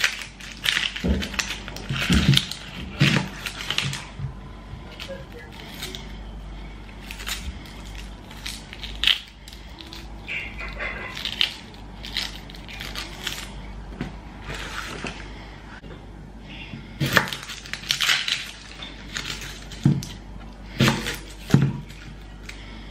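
Kitchen knife cutting and peeling small onions on a wooden cutting board. Sharp knocks of the blade on the board come in clusters at the start and again near the end, with the crackle of the dry papery onion skins being peeled between.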